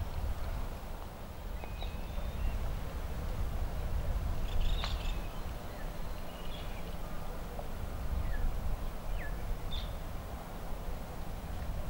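Outdoor ambience on a golf course: a steady low rumble with scattered short bird chirps, and a single sharp click about five seconds in.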